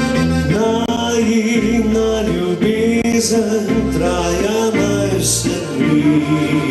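A slow song played by a live band, with a man singing into a microphone over it.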